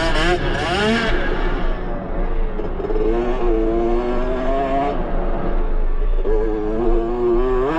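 2022 Yamaha YZ65's small two-stroke single-cylinder engine revving under a rider on a dirt track, its pitch rising and falling with the throttle. The revs drop off about a second in, hold fairly steady for a couple of seconds, ease off around five seconds in, then pick up again near the end.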